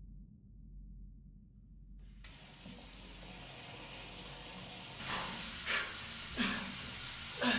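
A faint low rumble, then about two seconds in a steady rush of running water starts. Near the end four short, louder sounds rise over the water.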